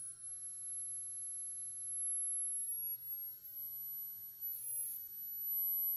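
High-pitched steady whine from a vintage tube TV's horizontal sweep circuit (horizontal oscillator driving the flyback), its pitch creeping slightly upward with a brief wobble about four and a half seconds in. The horizontal oscillator is running slower than it should, which makes the line-frequency whine loud.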